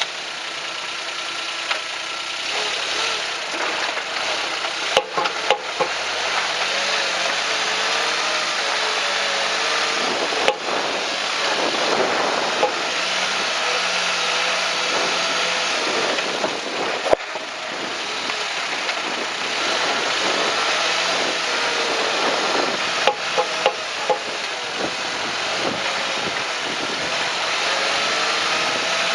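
Suzuki Jimny driving, its engine speed rising and falling over road noise, with a few sharp knocks from the undercarriage. The knocks are the suspension noise that comes with some suspension strokes, which the owner suspects may be a failing drive shaft or joint.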